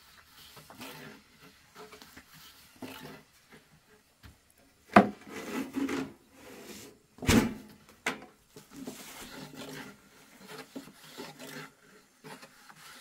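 Thin wooden rolling pins working flatbread dough on round wooden boards: soft repeated rubbing and scraping of wood, with a few sharp wooden knocks, the loudest about five and seven seconds in.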